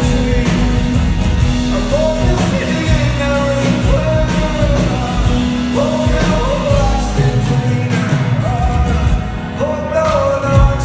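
Live folk-rock band playing: a man sings the lead over acoustic guitar, electric guitar, upright bass and drums. The voice holds and bends its notes over a steady beat.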